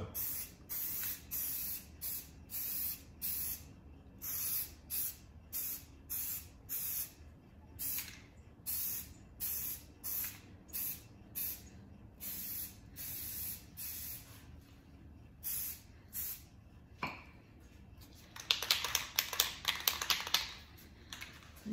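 Aerosol can of Rust-Oleum camouflage spray paint sprayed in short hissing bursts, about two a second, laying down a freehand camo pattern. Near the end the spraying stops and the can is shaken, its mixing ball rattling rapidly.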